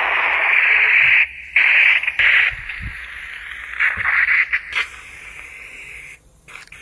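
Hissing, scraping noise from restoration work on a rusty bread cutter, coming in several bursts with short breaks, then fading out near the end.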